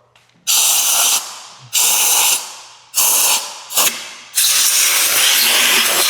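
Compressed air blasting in hissing bursts: four short blasts of under a second each, then a longer continuous blast starting a little past four seconds in. The air is blowing debris out of a motorcycle's intake area so nothing can be drawn into the throttle bodies.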